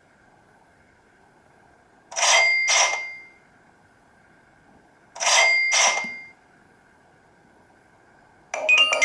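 Nokia E66 alert tone: a short bell-like chime of two quick strikes that ring out briefly, played twice about three seconds apart.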